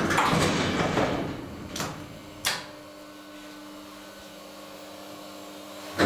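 1970 HIRO elevator in operation: a rushing mechanical noise fades over the first two seconds, then a sharp clunk comes about two and a half seconds in, followed by a low steady hum.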